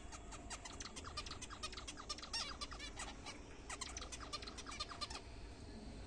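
Zebra finches calling: a rapid run of short, repeated pitched calls from several birds, breaking off about five seconds in.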